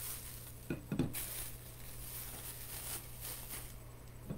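Quiet room tone with a steady low hum, and a brief soft bump about a second in as a stainless steel tumbler is handled.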